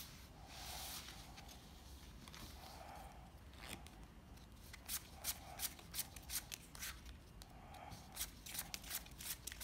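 A deck of playing cards handled on a felt table: swept up from a spread, shuffled and dealt. A soft sliding hiss early on gives way, about halfway through, to a run of sharp card snaps and clicks, several a second.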